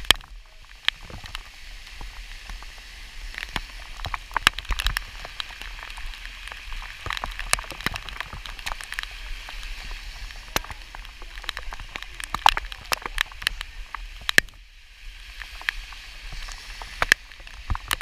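Heavy rain falling steadily, with irregular sharp taps of drops landing close to the microphone. The rain briefly eases near the end.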